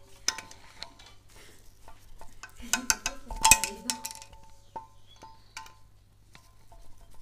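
Multi-grip pliers clicking and scraping on a BMW M50 cylinder head as valve stem seals are gripped and pulled off one after another. Short metallic clinks ring briefly, busiest about three to four seconds in.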